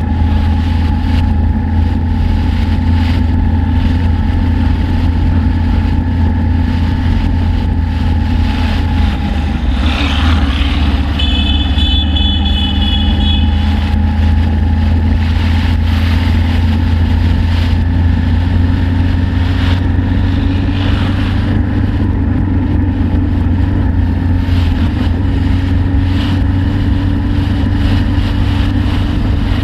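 Suzuki Inazuma GW250's parallel-twin engine running steadily as the motorcycle rides along, with road and wind noise. About eleven seconds in, a brief high, steady tone sounds for a couple of seconds.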